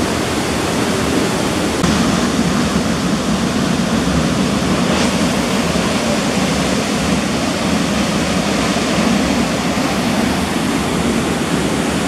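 Large waterfall, about 60 m high, in heavy flow: a loud, steady rush of falling water crashing into its plunge pool.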